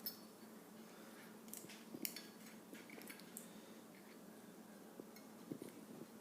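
Faint, scattered metallic clicks and taps of a Remington Fieldmaster 121 rifle's small parts being handled and fitted together by hand, over a steady low hum.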